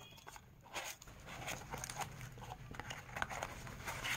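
A small cardboard box being opened by hand and its wrapped contents handled: light scraping and rustling with scattered small clicks.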